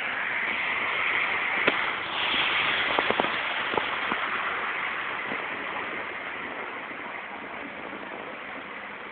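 Rain and wet tyre spray hissing on a freeway, with a few sharp ticks in the first few seconds; the hiss slowly fades.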